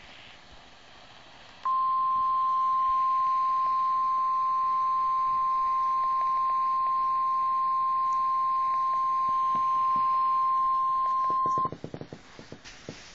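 NOAA Weather Radio's 1050 Hz warning alarm tone: a single steady, loud tone about ten seconds long, starting under two seconds in. It marks the start of a warning broadcast. When it cuts off, a short burst of clicks and crackle follows.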